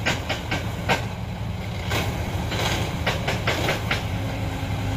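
A crane tow truck's diesel engine running steadily under load, with a string of irregular sharp clacks over it.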